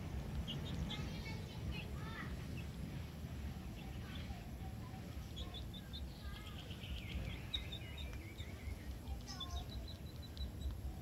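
Small birds chirping and calling, with a run of notes stepping down in pitch about six seconds in and a string of quick high notes near the end, over a low steady rumble.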